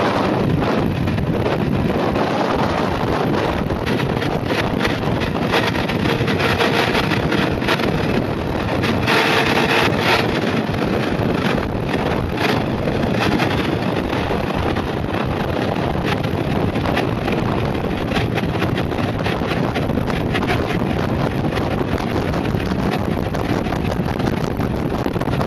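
Wind rushing over the microphone mixed with a mountainboard's pneumatic tyres rolling fast on asphalt: a steady, dense rushing noise with many small bumps and rattles. About nine seconds in it grows briefly louder and brighter.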